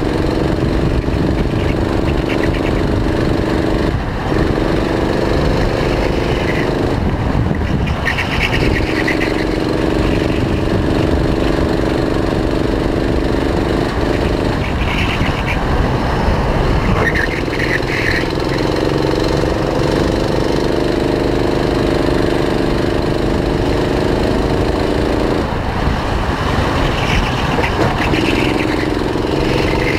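Kart engine heard on board at racing speed, its pitch climbing along each straight and dropping away briefly about five times as the driver lifts off for the corners.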